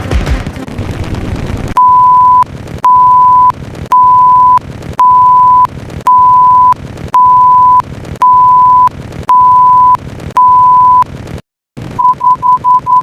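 Electronic beep tone, one steady pitch, sounding nine long even beeps about a second apart after a second or two of noisy rumble. After a brief dead silence near the end, the same tone switches to rapid short beeps, several a second.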